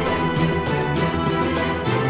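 Instrumental background music with a steady, quick percussive beat over sustained chords.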